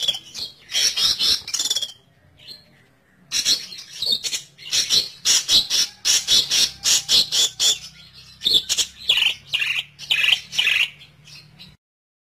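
Long-tailed shrike (cendet) giving harsh, rasping scolding calls in rapid runs of short notes. A gap of about a second comes two seconds in, and the calls cut off suddenly near the end. This is the shrike call used as a lure for trapping cendet.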